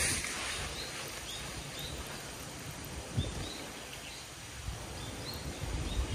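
Outdoor ambience: a steady hiss and low rumble, with a short high chirp repeating about twice a second, typical of a small bird or insect calling.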